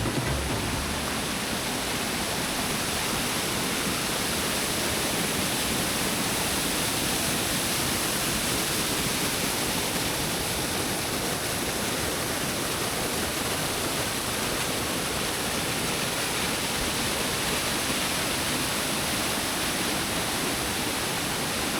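Waterfall on the Thiririka River: water falling and splashing in a steady, even rush.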